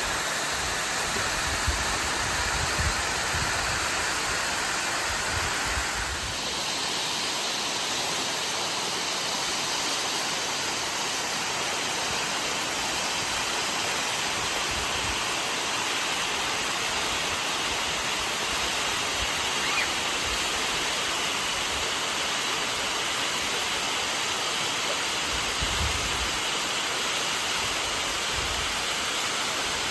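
Rocky Brook Falls, a horsetail waterfall nearly 200 feet tall, rushing steadily: an even wash of falling water with no break. About six seconds in the sound changes, with less low rumble.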